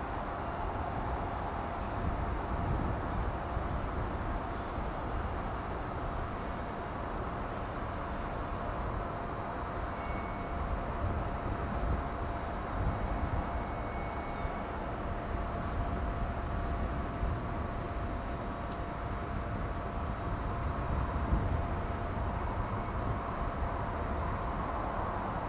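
Steady dockyard background noise: a low rumble with a constant mid-pitched hum and a few faint clinks.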